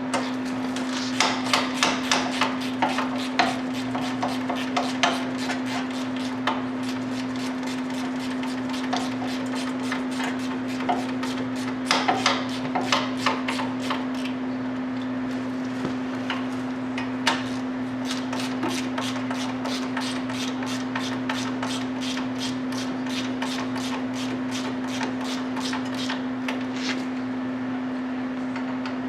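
Ratchet wrench clicking in a steady run of strokes as the new wheel hub assembly's mounting bolts are drawn in, a few sharper clusters of clicks among them. A steady hum runs underneath.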